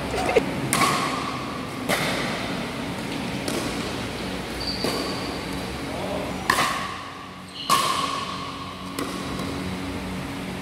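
Pickleball paddles striking a plastic pickleball during a rally: a series of sharp pocks at irregular intervals of about one to two seconds, each with a short ringing tone and echoing in a large gym hall.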